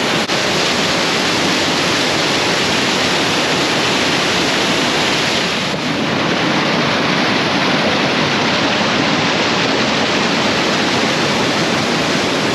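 Waterfall raging in full spate after heavy rainfall: a loud, steady rush of falling water heard from close to its foot.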